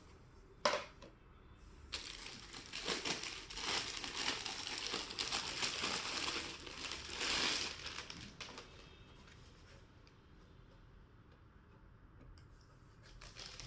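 Plastic packaging being handled and unwrapped, crinkling and rustling, with a sharp click under a second in; the crinkling is busiest in the first half and dies down to quieter handling near the end.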